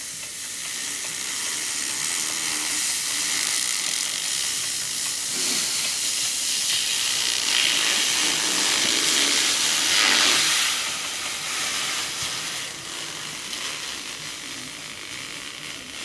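Protective plastic film being peeled slowly off a PC case's clear side panel, a continuous crackling hiss that swells to its loudest about halfway through and eases off toward the end.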